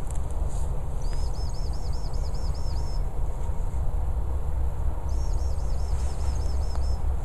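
Wind noise buffeting the microphone, with two runs of rapid, identical high chirps, each about two seconds long at roughly five chirps a second.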